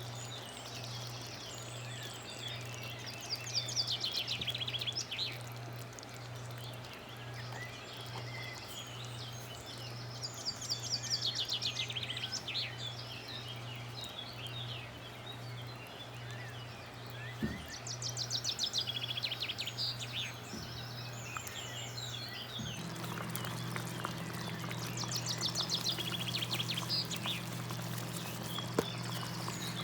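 Bird calls in quick high chirping series, repeated every several seconds over a steady low hum; about two thirds of the way through, a second hum joins in.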